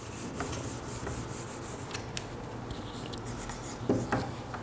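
Whiteboard being wiped clean with an eraser: a steady rubbing with a few light clicks. Near the end a marker starts writing on the board.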